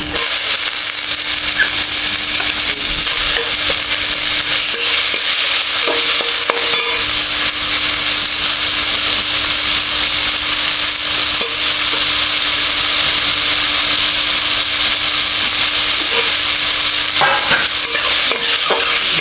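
Chopped ridge gourd frying in hot fat in a metal kadai, a steady sizzling hiss as it is stirred, with a few clicks of the metal spatula against the pan near the end.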